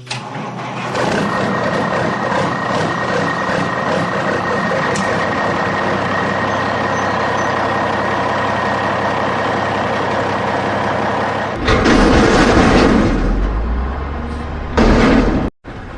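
Truck engine sound running steadily, with a faint steady whine over it, then two louder surges near the end.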